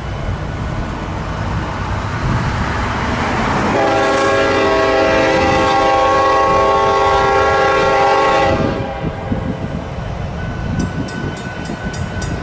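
A diesel freight locomotive's multi-chime air horn sounds one long, loud blast of about five seconds over the rumble of the passing train. Near the end, rapid clicking of wheels over rail joints comes in.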